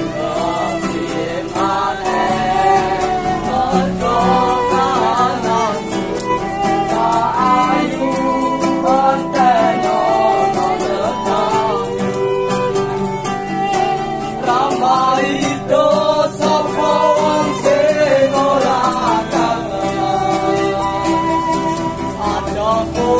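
Violin playing a wavering melody over a strummed acoustic guitar, with a voice singing along: street buskers performing.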